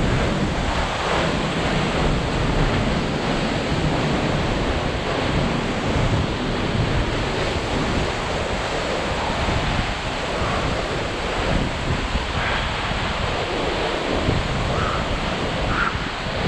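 Tall waterfall rushing steadily as it plunges onto rocks, with wind buffeting the microphone.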